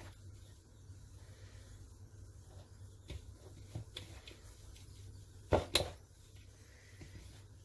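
Hand mixing a dry blend of ground sesame, almonds, oats and peanuts in a bowl: faint rustling with a few light clicks, and two sharp knocks just over halfway.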